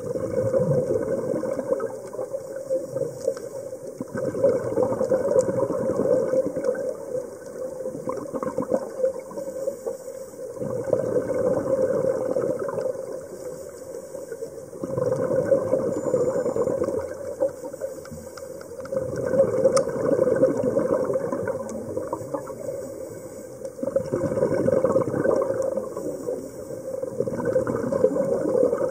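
A scuba diver breathing through a regulator underwater: exhaled bubbles rush out in about eight bursts a few seconds apart, with quieter inhalations between them.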